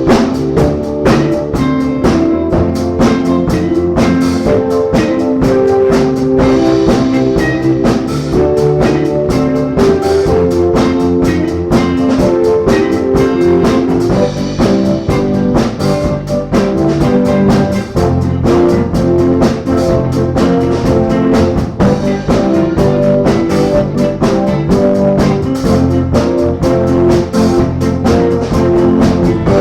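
Live band playing a jazz tune, with a drum kit keeping a steady beat under guitar.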